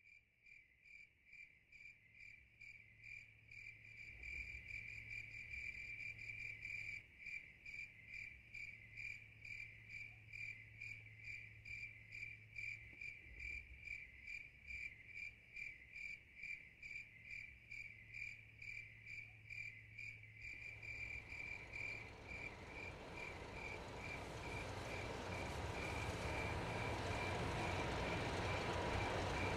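Cricket chirping in a steady, even rhythm of about two chirps a second, fading in at the start. About two-thirds of the way through, a wide rushing noise swells up beneath the chirps and keeps growing louder.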